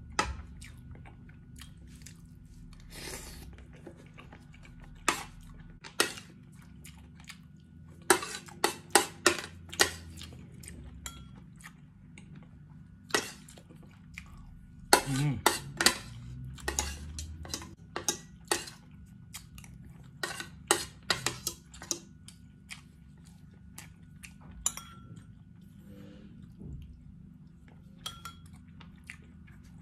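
Metal fork and spoon clinking and scraping on a ceramic plate during a meal, in irregular clusters of sharp taps, with chewing in between.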